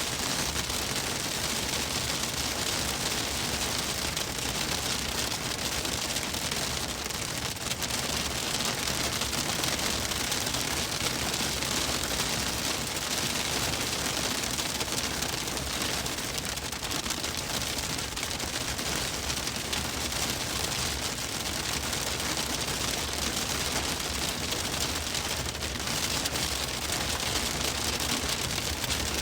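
Hail pelting a moving car's roof and windshield in a dense, steady rattle of countless small hits over a rushing hiss.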